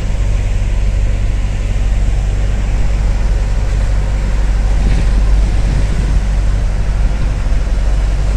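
Motorized passenger boat's engine running at a steady cruising drone, low and unbroken.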